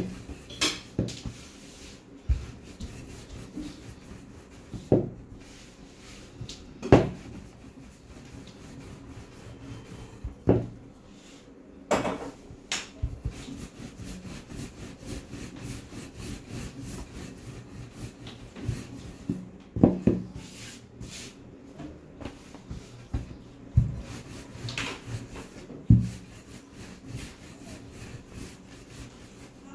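Dough being worked on a wooden kitchen table: soft rubbing with about ten sharp, irregular knocks.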